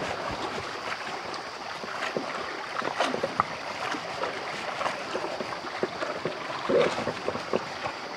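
Bullocks and a wooden cart wading through shallow flood water, splashing and sloshing steadily with many small splashes.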